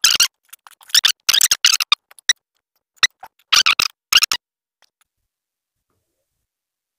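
Short bursts of crackling, rustling handling noise, about five of them in the first four and a half seconds, from thread and clear adhesive tape being worked around a cricket bat's handle.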